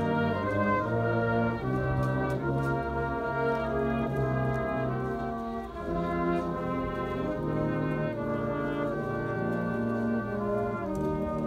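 Brass band playing a slow piece in held chords that change about every second.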